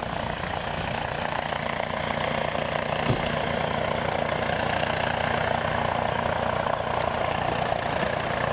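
Air ambulance helicopter flying, its rotor and turbine engine making a steady drone with a fast, regular rotor beat.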